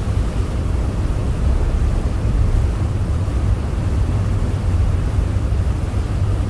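Steady low rumble with a faint hiss, outdoor background noise with no distinct events.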